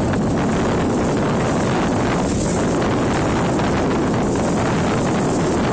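Loud, steady wind rushing over a phone's microphone on a motorboat under way across open water.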